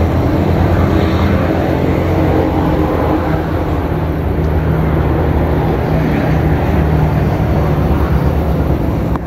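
A steady low engine-like rumble and hum.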